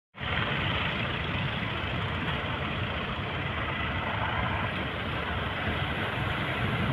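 Steady rumbling noise of a small fishing boat at sea, its engine running without a break.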